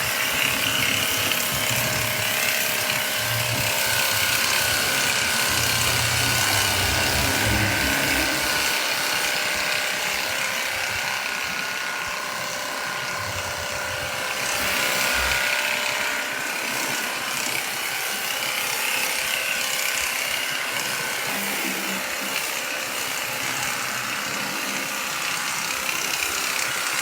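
Cordless pressure washer running steadily and spraying water: a continuous hiss of spray over the steady hum of its motor and pump.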